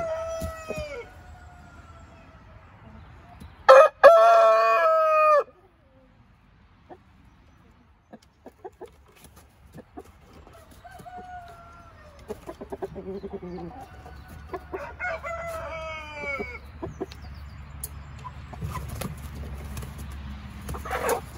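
Brahma rooster crowing several times: one crow trailing off about a second in, a long loud crow about four seconds in, and another about fifteen seconds in, with hens clucking between them.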